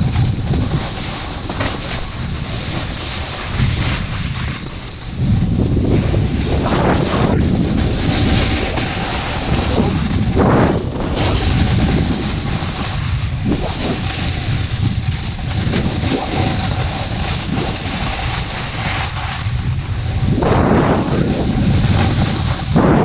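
Wind buffeting a pole-held camera's microphone during a downhill run on a ski slope, a steady rumbling rush with the hiss of sliding over snow beneath it. A few brief louder scraping swells come through, about a third of the way in, near the middle and near the end.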